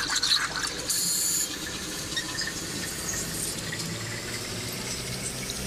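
Water sloshing and splashing as hands work over a radiator core held under water in a leak-test tank, with a hiss during the first second and a half. The radiator is under air pressure, and bubbles rising from the core mark a leak.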